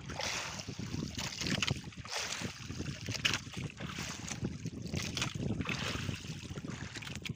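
Wind gusting on the microphone over water lapping against a small outrigger boat at sea, an uneven rushing noise with no steady tone.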